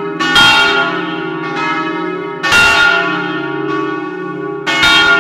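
Large bronze church bells swinging in an electrically driven peal (doppio), their clappers striking in turn about once a second: a louder stroke every two seconds or so alternating with a softer one. Each stroke rings on into the next over a steady hum, heard up close in the bell chamber.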